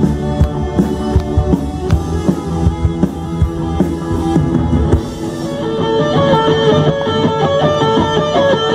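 A live rock band plays a pop song through a PA: electric guitars, bass and drum kit. About five seconds in, the drums drop out, leaving guitars and held notes ringing on.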